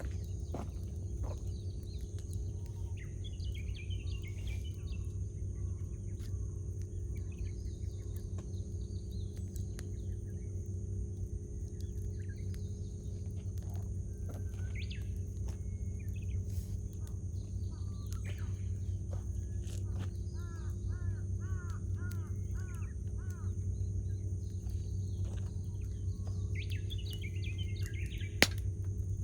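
Campfire crackling with scattered small pops over a steady low rumble, while wild birds call around it: short chirps, and about 20 seconds in a run of about seven quick repeated notes. One sharp, loud pop from the fire comes near the end.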